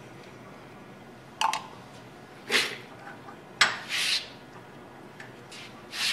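Steel hand tools clinking and knocking: a tap and T-handle tap wrench being handled and set onto a steel part in a bench vise, with five short metallic clinks and a brief scrape about four seconds in.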